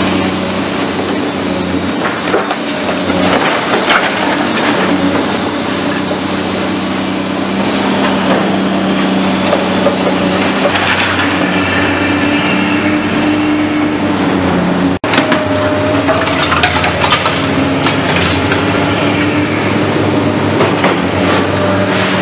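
Heavy demolition excavator's diesel engine running steadily under hydraulic load while its demolition shear picks through rubble, with masonry and scrap metal clattering and crunching. The sound drops out for an instant about fifteen seconds in.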